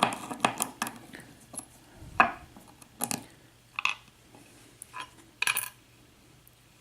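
Small metal lock parts clicking and clinking against each other and a hard surface as a Schlage pin-tumbler lock is taken apart: a string of separate sharp clicks, the loudest about two seconds in.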